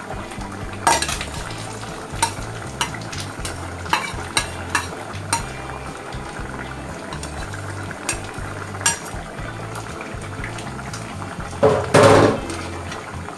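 A steel ladle clinks and scrapes against an aluminium cooking pot and its plastic lid in a string of sharp clicks, then stirs the curry with a louder clatter near the end, over a steady low hum.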